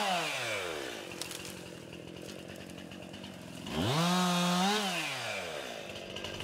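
Two-stroke chainsaw engine dropping from high revs to idle at the start. It idles for a few seconds, then is revved once for about a second and falls back to idle.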